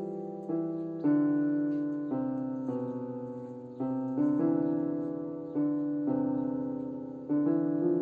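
Background music: a slow piano tune, its notes struck about once a second and left to fade.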